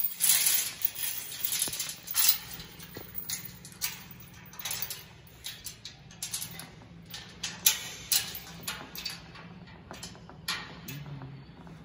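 Irregular scuffing footsteps with rustling while walking, a short scuff every half second to a second, growing fainter near the end.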